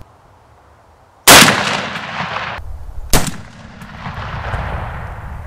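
Shotgun firing No. 2 steel shot: two very loud blasts about two seconds apart, each followed by a rolling echo that fades; the first echo cuts off abruptly.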